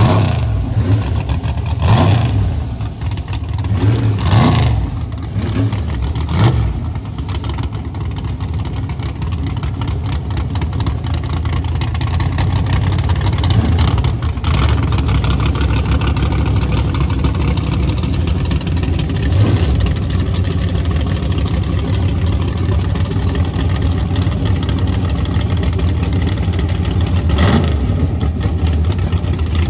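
A drag car's V8 revs in several short, sharp blips as the burnout ends. It then settles into a loud, steady idle, with a few more single blips of the throttle later on.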